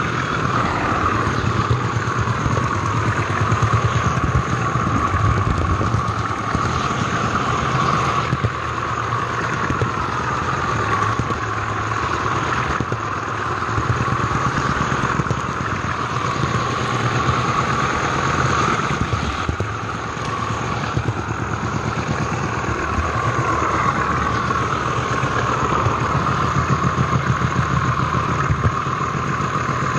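OO gauge model train running on its track: a steady motor whine that slowly rises and falls in pitch, over a fast clatter of wheels on rails.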